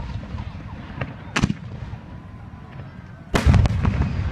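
Fireworks exploding: one sharp bang about a second and a half in, then a much louder blast about three seconds in, followed by a rapid string of further reports.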